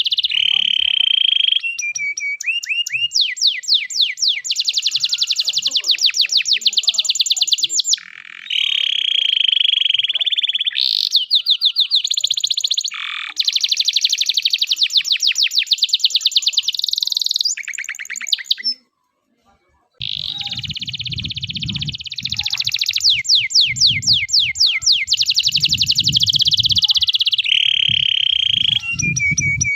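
Domestic canary (a 'loper' long-song singer) singing a long, continuous song of rapid trills, rolls and held tones, breaking off for about a second two-thirds in before starting again. After the break a low rumbling noise runs under the song.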